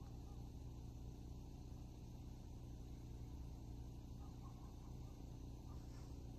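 Faint, steady low rumble of background noise with nothing else standing out.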